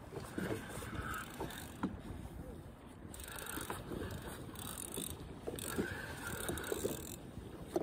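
Scattered light clicks and knocks of fishing gear being handled on a small boat, over a steady rumble of wind and water.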